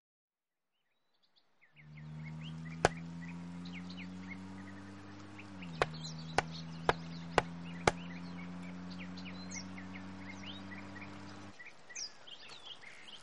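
Cricket bat knocking a wooden stump into the ground: one sharp knock about three seconds in, then five more about half a second apart, with birds chirping throughout.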